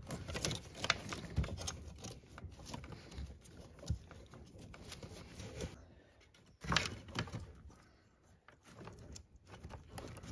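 Wires and plastic connectors of a car's wiring harness being handled under the dashboard: scattered small clicks and rustles, with one sharper knock a little past halfway.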